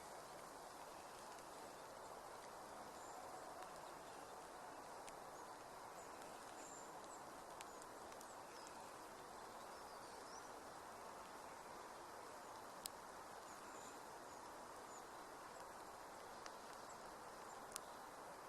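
Light rain falling: a faint, steady soft hiss, with a few single sharp drip clicks, the loudest near the end.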